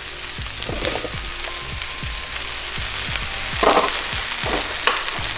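Sliced mushrooms sizzling in hot olive oil in a stainless steel sauté pan: a steady hiss with many scattered crackles, and a few louder pops a bit over halfway through.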